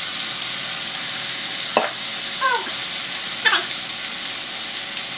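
Squid and soy sauce sizzling in a stainless steel pan on a gas burner, a steady hiss. Three short squeaks falling in pitch cut in at about two, two and a half and three and a half seconds in.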